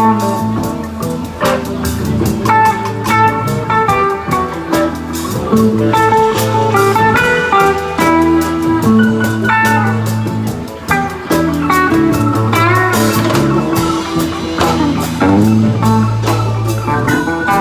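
Live band playing a blues-rock jam: electric lead guitar playing a run of single-note phrases over a bass line, drum kit and percussion.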